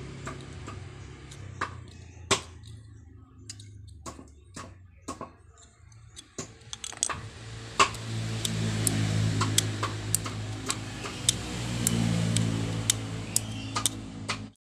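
Small sharp clicks and taps from a disassembled angle-grinder switch being handled and pressed by hand after its contacts were cleaned and oiled; from about halfway the clicks come roughly twice a second. A steady low engine hum runs underneath through the second half.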